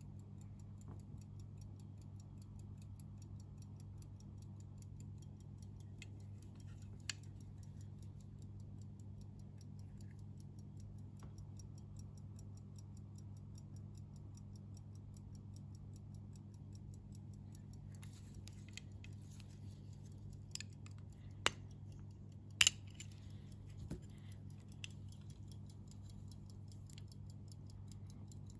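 Antique Swiss lever-escapement pocket watch by Ch. Hermann & Co., hand-wound, ticking fast and evenly over a low steady hum. A few sharp clicks come from its silver hunter case being handled, a little after halfway through.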